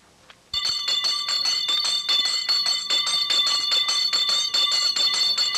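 A school bell ringing in rapid, even strokes. It starts about half a second in and stops just before the end.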